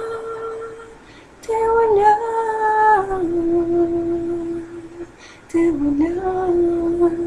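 A woman singing long, held notes with no clear words in a slow, free-flowing worship melody. The notes step down in pitch, with two short breaks, and one note dips and rises again before settling.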